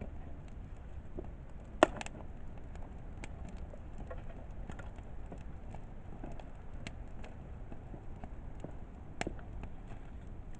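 Wood campfire crackling: scattered small pops over a low steady rush, with one loud sharp pop about two seconds in and another near the end.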